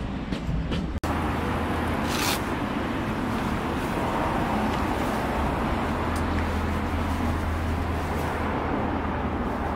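Steady low outdoor rumble with a constant low hum, with a brief rustle a little after two seconds in.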